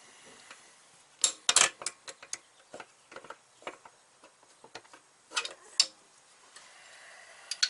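Scattered metallic clicks and taps from a hand wrench and a steel brake hard line being worked into place along the car's chassis. They come in quick clusters, loudest about a second and a half in and again just before six seconds.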